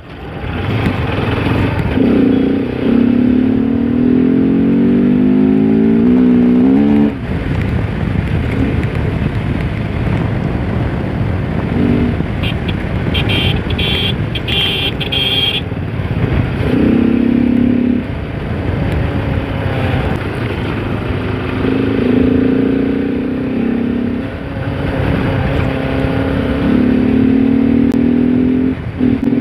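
Bajaj Pulsar RS200's single-cylinder engine under way, its pitch climbing as it accelerates and dropping back on the throttle several times, with wind rushing over the microphone. About halfway through there is a quick run of short horn beeps.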